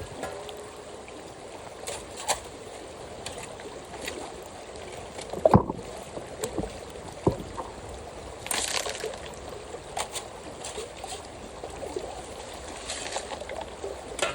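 Creek water running steadily over gravel, with scattered knocks and scrapes of rocks and gravel being dug and moved by hand in the creek bed, the loudest knock about five and a half seconds in.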